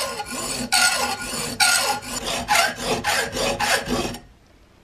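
Hacksaw sawing back and forth through a forged steel hinge blank held in a vise, about two strokes a second, cutting the slots that separate the hinge knuckles. The strokes stop near the end.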